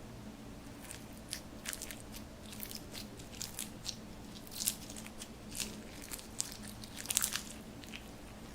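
Slime being worked by hand, giving irregular small crackles and pops, thickest over the second half, over a steady low hum.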